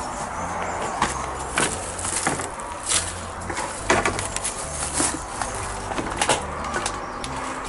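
Footsteps crunching through leaf litter, undergrowth and loose timber debris, with irregular sharp snaps and cracks every half second to a second over a low rumble.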